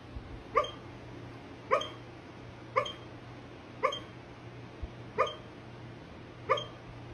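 A dog hiccuping: short, sharp, high little hics, about one a second, evenly spaced.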